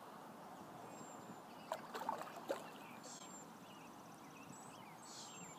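Hooked bass splashing at the water's surface close to the bank, a few short splashes about two seconds in, over quiet outdoor ambience with faint high chirps.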